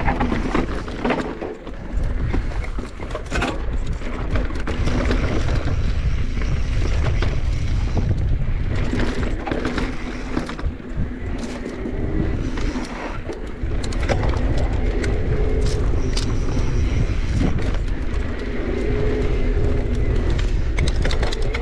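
Mountain bike riding dirt singletrack: a steady low rush of wind and tyre noise, with frequent clicks and knocks as the bike rattles over rough ground.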